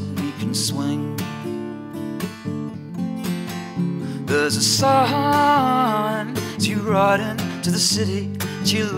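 Background music with strummed acoustic guitar.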